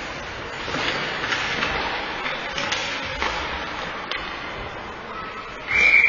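Ice hockey play: a few sharp clacks of sticks and puck over the rink noise, then near the end a referee's whistle blows, a loud, high, steady note.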